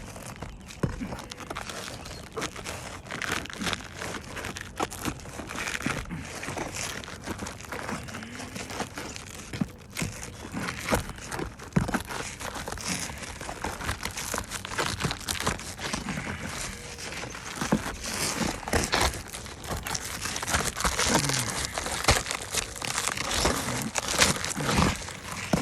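An asphalt shingle being worked off the roof decking with a roofing snake: steady crackling and tearing of the shingle, with many sharp clicks and knocks of the metal tool.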